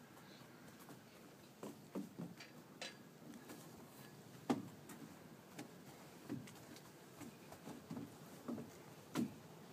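Faint, irregular knocks and thuds of a toddler's footsteps on a playground's perforated metal deck, about ten in all, the loudest one about halfway through.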